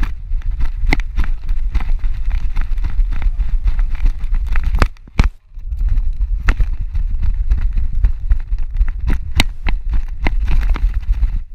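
Low rumble and buffeting on a GoPro harness-mounted on a running Shih Tzu, with many irregular knocks and clicks as the camera is jostled. It briefly goes quiet about five seconds in.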